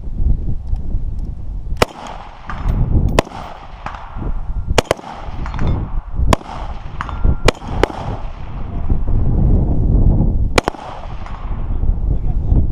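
Six rifle shots fired singly at uneven gaps of one to three seconds, each a sharp crack with a short echo, over a steady low rumble.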